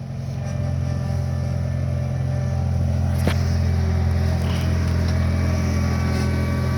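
Skid steer engine running steadily, its drone swelling over the first second as the throttle comes up, with a single faint click about three seconds in.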